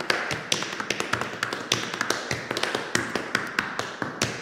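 Tap shoes striking a hard studio floor in a fast, uneven run of crisp taps, several a second.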